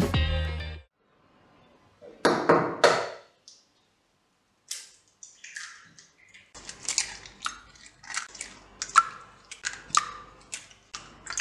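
Raw eggs being broken into a glass bowl: short wet plops and taps against the glass, a brief cluster about two seconds in, then a quick run of them over the last third.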